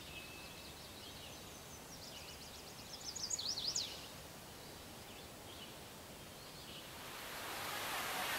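A songbird singing a quick run of high, sliding notes about two to four seconds in, over faint outdoor background. Near the end a steady rushing noise swells in.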